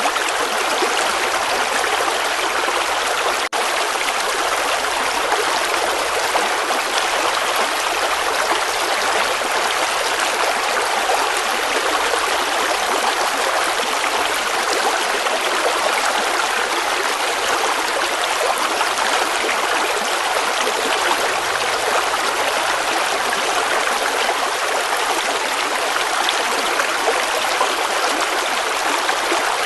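River water flowing in a steady, unbroken rush, with a split-second dropout about three and a half seconds in.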